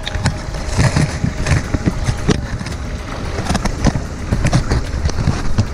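Shallow creek water splashing and lapping right at the microphone: irregular splashes and small bursts of water sound over a low rumble.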